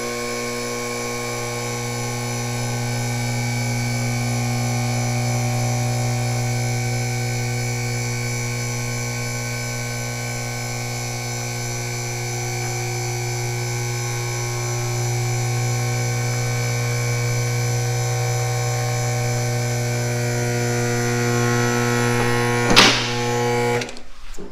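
Two-post car lift's electric hydraulic pump motor running with a steady hum as it raises the car. A sharp clack comes near the end, and the motor cuts off just after.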